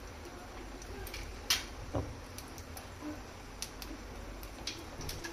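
Cumin seeds frying in hot oil on a flat tawa, crackling and popping irregularly, about two pops a second, with the strongest pop about a second and a half in.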